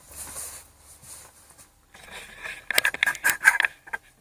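Handling noise: a soft rustling, then about halfway through a rapid run of clicks and scrapes as the camera is picked up and turned around.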